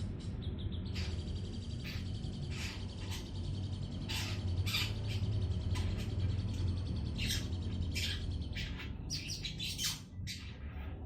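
Young long-tailed shrike (cendet) practising its song: a string of short, harsh chirps and squawks at irregular intervals, with some thin high notes between them, over a steady low hum.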